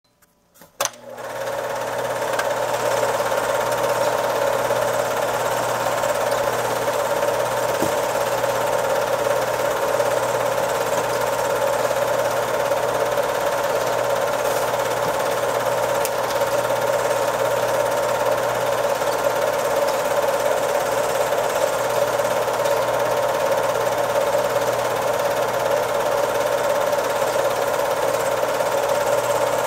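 A film projector starts with a click and comes up to speed within about two seconds, then runs with a steady mechanical whirr and hum.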